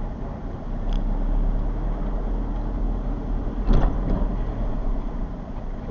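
Car driving, heard from inside the cabin: steady low engine and road rumble, with one sharp thump about three and a half seconds in.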